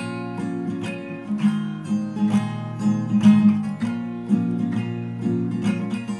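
Background music on acoustic guitar, plucked and strummed.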